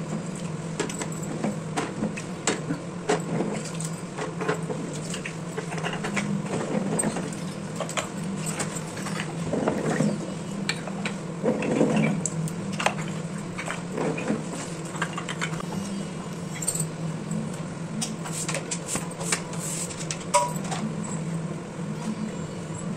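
Small clay diyas knocking and clinking against one another and against a plastic colander and bowl as they are washed in water, many short irregular knocks throughout, over a steady low hum.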